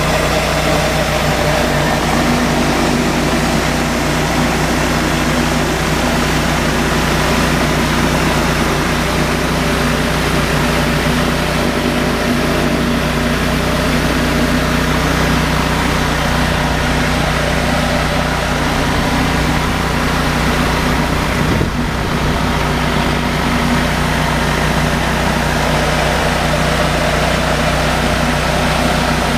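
Gas-engine Echo PW3600 pressure washer running steadily, with the loud hiss of a flat surface cleaner spraying across concrete. The sound dips briefly about two-thirds of the way in.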